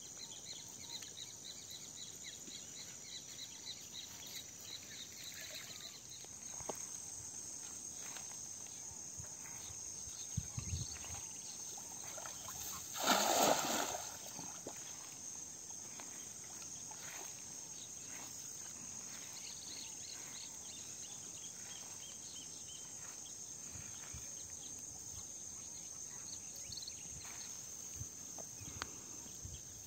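Steady high-pitched chirring of insects in the open countryside, with a fast pulsing trill in the first few seconds. About halfway through comes one short loud rush, like a splash or a net slapping the water.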